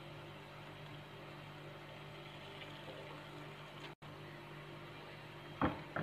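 Faint steady hiss and low hum as a bajra roti cooks on a hot, lightly oiled iron tawa. The sound breaks off for an instant about four seconds in. Near the end come a couple of short clatters as a metal spatula is taken up.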